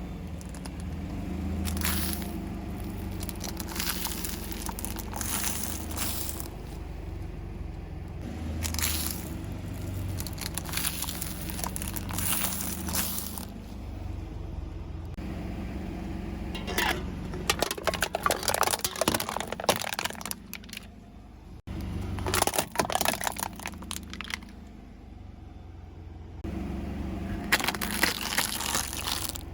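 Foam balls crunching, crackling and squishing as they are crushed under a car tyre, in a run of separate bursts over the low steady hum of the car.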